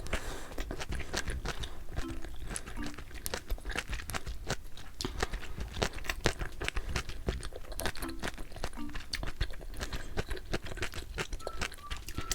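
Close-miked eating: a rapid, irregular run of wet clicks and small crunches of someone chewing a mouthful of braised kimchi stew.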